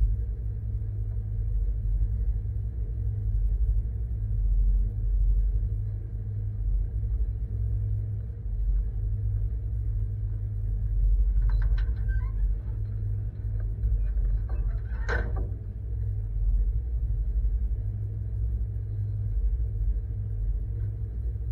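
Pickup truck engine idling with a steady low rumble. Twice near the middle, chickens give short calls, the second louder than the first.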